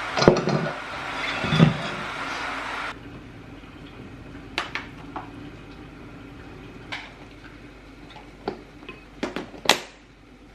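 Kitchenware being handled: a steady rushing noise with two thuds stops suddenly about three seconds in, then scattered clinks and knocks of dishes and utensils follow, the loudest near the end.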